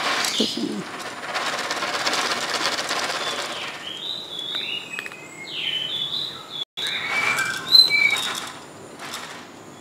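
A food packet rustling and crinkling as it is worked open, followed by a run of short, high chirps and squeaks.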